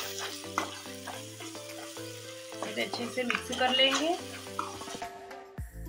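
A steel spoon stirs and scrapes an onion-tomato masala in a steel kadhai while it sizzles in hot oil, with clicks of the spoon on the pan, over background music.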